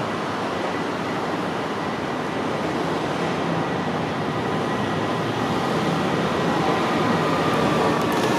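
AnsaldoBreda Sirio tram approaching on its rails, its running noise growing steadily louder, with a faint, high, steady whine.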